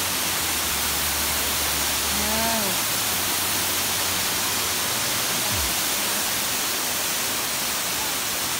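Cascading waterfall pouring down tiers of rock: a steady rush of falling water.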